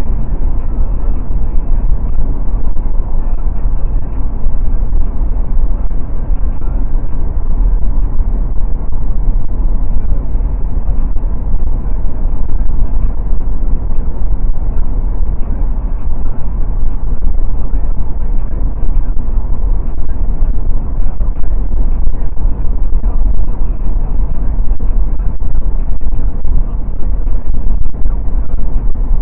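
Steady, loud low rumble of road and wind noise from a Mercedes-Benz car cruising at highway speed.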